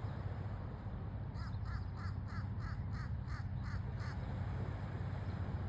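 Crows cawing in a quick run of about nine short calls, roughly three a second, from about a second in to about four seconds in, over a steady low rumble.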